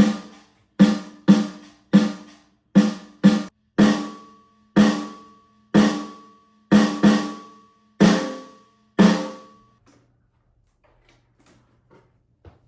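A snare drum track played back: about a dozen single snare hits at an uneven rhythm, each ringing out briefly with a sustained tone, stopping about ten seconds in.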